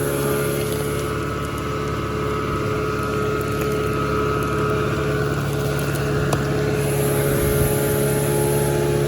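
Engine of an earth-moving machine running steadily, a constant drone with a steady hum.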